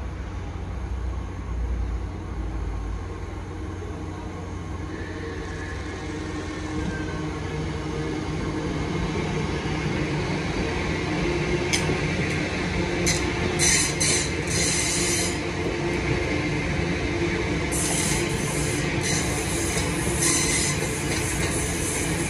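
A diesel-hauled freight train passing. The engine rumble grows steadily louder, then from about halfway comes a run of metallic clanks and squeals from the wagon wheels.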